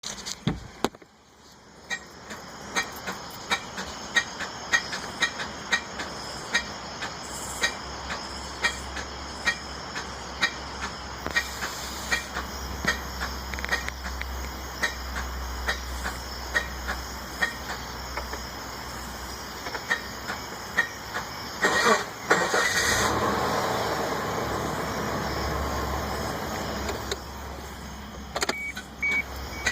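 A Suzuki XL7 failing to start: a steady low hum with repeated short clicks, about two a second. About two-thirds of the way through, a louder rush of noise lasts several seconds before the hum and clicks return.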